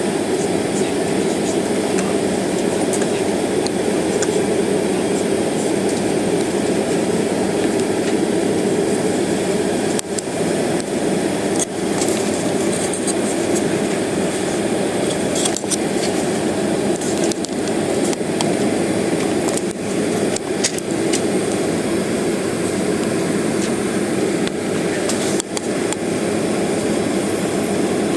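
Steady low hum of a jet airliner cabin with the engines idling while the plane stands still on the taxiway. A few faint clicks sound over it.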